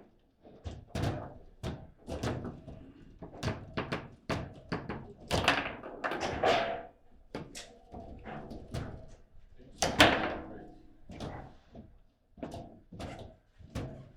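Table football game in play: a rapid, irregular run of knocks and thuds as the ball is struck by the rod-mounted players and bangs off the table's walls, with the loudest slam about ten seconds in.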